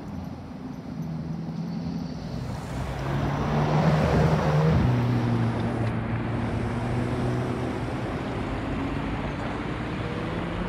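High-performance car engine accelerating away in traffic: it is loudest about four seconds in, then its note climbs steadily as the car pulls away.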